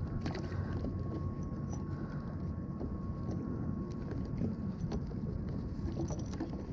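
Steady low wind and water rumble on the microphone, with scattered light clicks and knocks of fishing rod and reel handling on the kayak.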